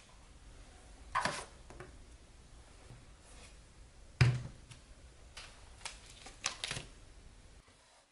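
A ceramic mug set down on a small wooden coaster, a solid knock about four seconds in, amid several lighter clicks and taps of things being placed on a desk.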